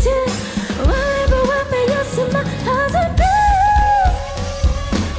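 Live pop song: a female lead vocal sings a melody over a band with electric guitar and a steady drum beat.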